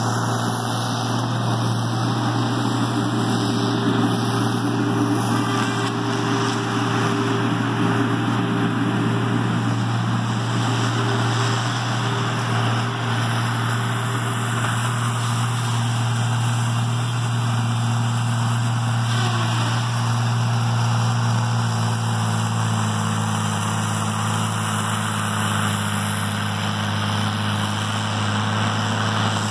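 Tigercat 720E wheeled feller buncher's diesel engine running steadily as the machine drives through the cut pine: a loud, even engine hum whose note shifts about three quarters of the way in.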